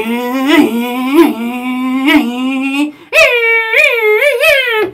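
A man imitating a Formula race car engine with his voice: a long buzzing drone with quick pitch blips, a short break about three seconds in, then a higher drone with dips, mimicking the car running and shifting gears.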